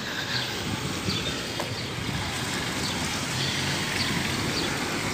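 Street traffic noise from passing cars and motorcycles, with wind on the microphone and faint high chirps now and then.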